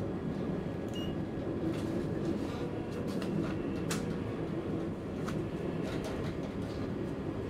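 Regional passenger train running along the line, heard from inside the driver's cab: a steady low rumble with a few light clicks through it.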